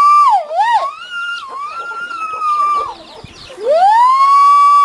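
Roosters crowing three times in succession, each crow rising quickly and then held on one long note. The first crow ends with a wavering drop, and the last one is held right up to the end.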